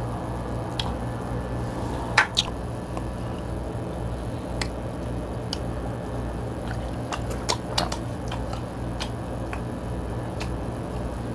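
Close-up eating sounds from a seafood-boil mukbang: wet chewing and squishing as fingers pick at sauced crab legs, with scattered sharp clicks and smacks. A steady low hum lies under it all.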